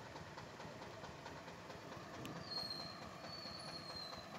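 Steady street noise with a vehicle engine idling, and a thin high squeal starting about halfway through and lasting about two seconds, falling slightly at the end.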